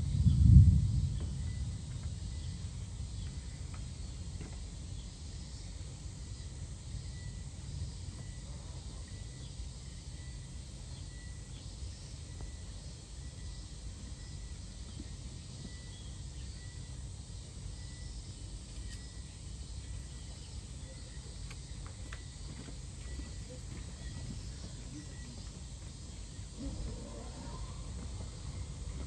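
Outdoor ambient noise: a steady low rumble with faint, evenly repeated high chirps, after a brief heavy buffet of low noise on the microphone at the very start.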